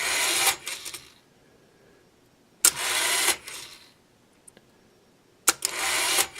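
Philco 48-1274 radio's auto-tuning mechanism cycling three times: each time a sharp click, then a short whirring run of the mechanism that stops after under a second. It is running fast.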